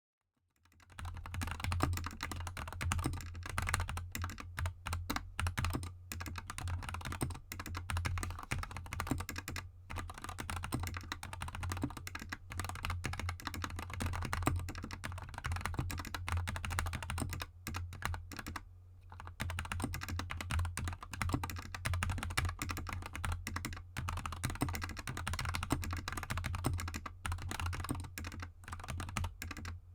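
Fast, continuous typing on a GK64 mechanical keyboard with Gateron Yellow linear switches lubed with Krytox 205g0 and XDA keycaps: a dense run of keystroke clacks that starts about a second in, with one short pause a little past halfway.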